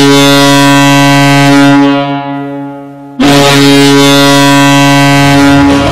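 Färjestad BK's arena goal horn sounding two long, loud blasts on one low tone. The first fades out two to three seconds in, and the second starts about a second later and stops just before the end.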